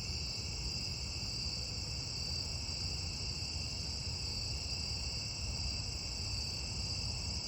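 A steady chorus of night insects, crickets or similar, trilling without a break in two high pitch bands, over a low rumble.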